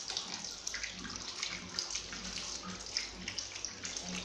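Water poured from a plastic mug over a baby's back during a bath, splashing in a steady stream onto the body and the tiled floor.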